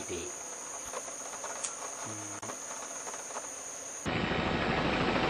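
Insects chirring with a steady high-pitched whine, with two brief low sounds near the start and about two seconds in. About four seconds in, the loud, steady noise of a helicopter's rotor and engine cuts in and drowns them out.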